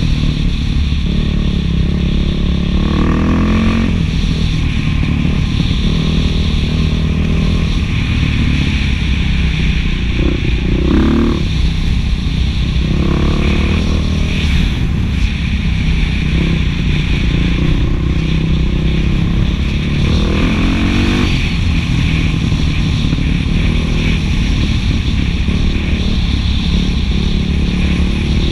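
Beta 500 single-cylinder four-stroke dirt bike running through an FMF 4.1 muffler while being ridden, the exhaust note climbing and dropping several times as the rider works the throttle and gears.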